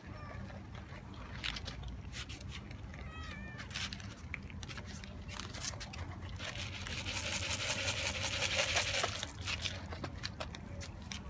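Stray cats meowing, a few short meows about three seconds in. From about six and a half seconds in, a rattling rush lasting about three seconds as dry cat food is poured into a bowl.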